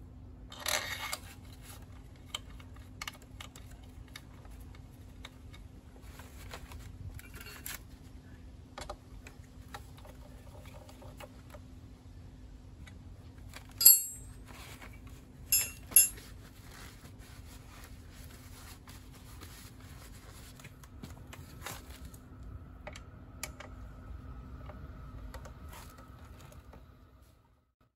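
Small metallic clinks and taps of hand tools and the gear case drain bolt being handled, with a few sharp, loud clinks about halfway through, over a steady low hum.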